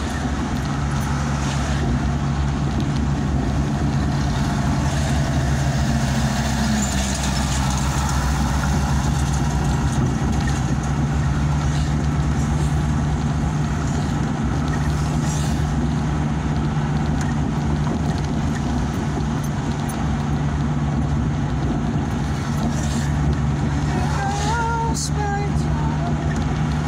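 Steady engine and road noise heard from inside the cab of a moving vehicle, a constant low hum under a broad rushing drone.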